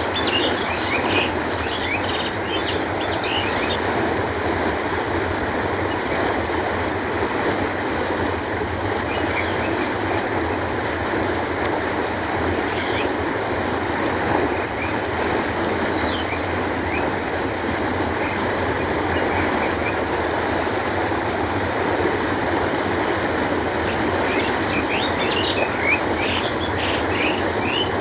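Canal water flowing in a steady rush. Small birds chirp briefly near the start and again near the end.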